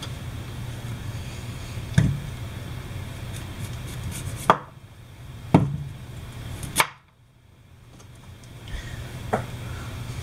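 Chef's knife chopping through peeled sweet potatoes onto a wooden cutting board: about five separate sharp strikes as the ends are cut off.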